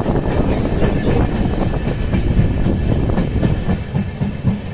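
Passenger train of LHB coaches running along the track, heard at an open coach door: a steady low rumble with rapid clicking of wheels over the rails.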